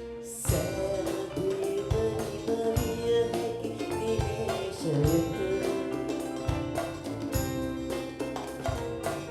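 Music: a song's instrumental backing with drums keeping a beat under sustained melody notes.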